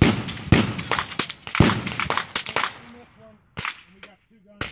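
Suppressed pistol fired in a quick run of sharp shots about half a second apart, slowing to two single shots spaced about a second apart near the end.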